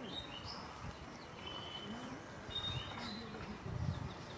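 Small birds chirping in short, high calls several times, over a faint outdoor background.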